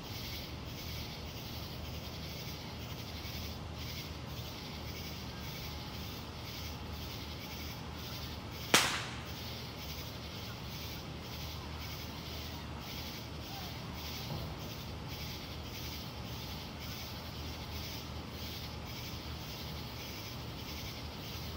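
A single sharp firework bang about nine seconds in, with a short echoing tail, over a steady background of even, rhythmic high-pitched chirping.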